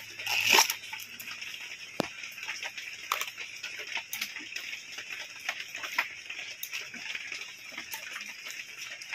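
Banana flower being stripped by hand: rustling and snapping of its waxy bracts and florets, with scattered small clicks. A louder short sound comes about half a second in, and a sharp click about two seconds in.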